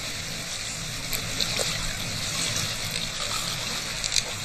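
Small waves lapping at the edge of a loch, a steady wash of water with a few brief ticks.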